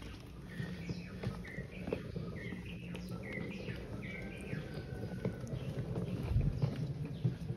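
Wheeled suitcase rolling along a tiled floor: a steady low rumble from the wheels with scattered knocks and footsteps. Birds chirp repeatedly in the background through the first few seconds.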